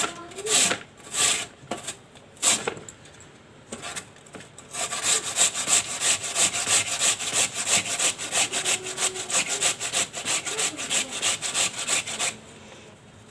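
Peeled raw potato grated on a stainless-steel box grater, each stroke a rasping scrape. A few slow strokes, a short pause, then a fast, even run of strokes that stops shortly before the end.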